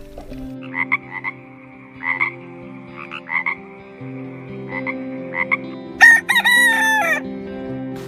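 A frog calls in short pulsed croaks, about eight times over the first six seconds. A rooster then crows once, loud, from about six seconds in, its call falling away at the end.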